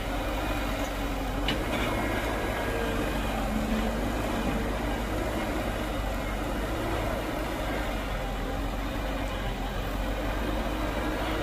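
Heavy diesel engine running steadily, with a faint click about one and a half seconds in.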